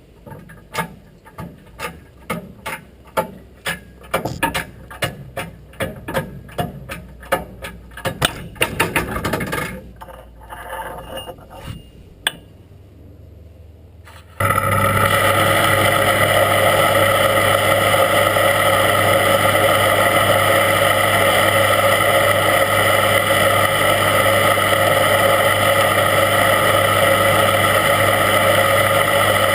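Irregular clicks and knocks, about two a second, for roughly the first ten seconds. About fourteen seconds in, a loud, steady machine hum with a constant whine starts abruptly and carries on unchanged.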